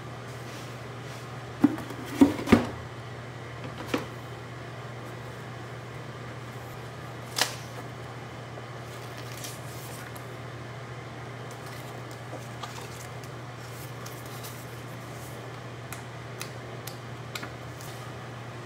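A cardboard camera box being handled: a cluster of three sharp knocks between one and a half and two and a half seconds in, single knocks near four and seven seconds, and a few faint taps later, over a steady low hum.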